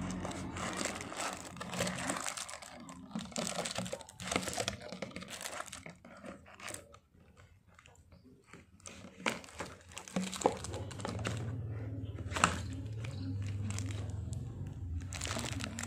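Plastic wrap crinkling and hard plastic kitchenware clicking and knocking as it is handled, a plastic colander basket being lifted out of and set back into its plastic tub. There is a quieter stretch in the middle, and a low hum sounds underneath in the second half.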